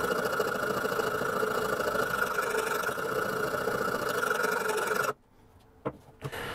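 A small motor running with a steady hum. It cuts off abruptly about five seconds in, leaving near silence and a couple of faint clicks.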